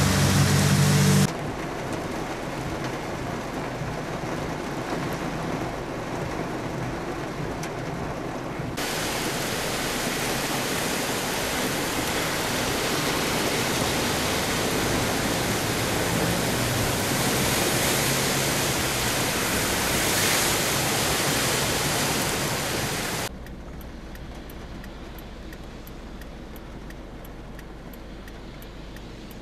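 Vehicles driving through deep floodwater in heavy rain: a steady rushing noise of downpour and tyres throwing up spray. There is a low engine hum in the first second. The level jumps abruptly at shot changes about a second in, about nine seconds in, and drops about six seconds before the end.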